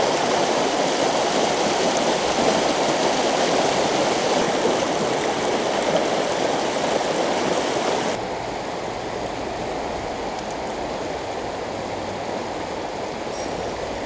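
River water rushing over a shallow riffle, a steady noise that drops a little in loudness about eight seconds in.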